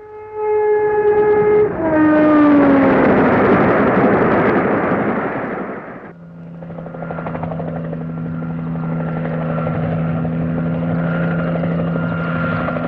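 A loud passing whoosh whose held tone drops in pitch, cutting off about six seconds in. Then a helicopter sound effect: a steady engine-and-rotor drone with a faint high whine.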